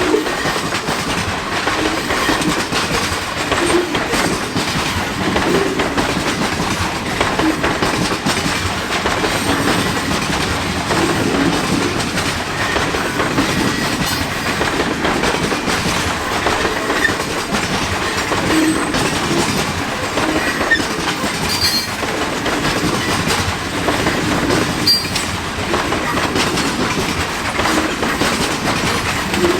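Freight cars of a mixed freight train rolling past at track speed, a steady rolling noise with wheels clicking over rail joints. No horn sounds.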